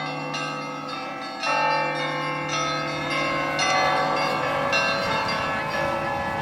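Church bells being rung by hand: several bells of different pitches sound together, each new strike laid over the ringing of the last. The loudest fresh strikes come about one and a half seconds in, with more a few seconds later.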